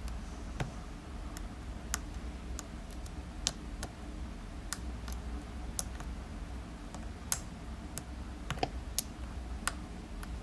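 Lock pick working the pins inside a Pfaffenhain euro cylinder: light, irregular clicks and ticks, a dozen or so spread across the stretch, over a faint steady hum.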